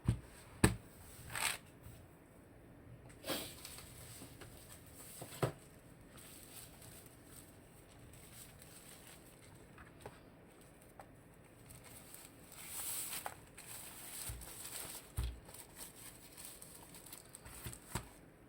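Handling noise of a low-profile mechanical keyboard: scattered single clicks and taps, with a stretch of rustling about twelve to fifteen seconds in.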